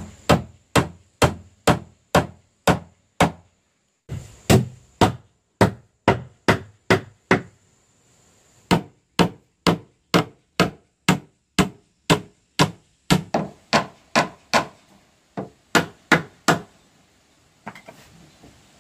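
Hammer driving nails into the wooden boards of a small pigeon house: sharp strikes about two a second, in four runs with short pauses between them.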